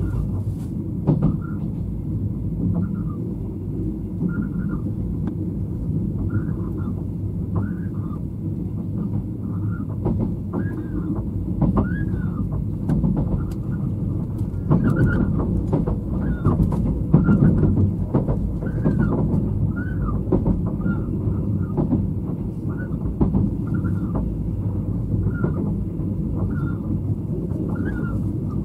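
Running sound inside a State Railway of Thailand sleeper express car: a steady low rumble of wheels on track with scattered knocks. Over it, a short rising-and-falling squeak repeats about every three-quarters of a second.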